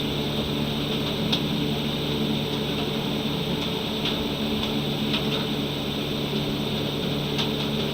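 Steady mechanical hum of a running machine in the room, with a few faint light ticks.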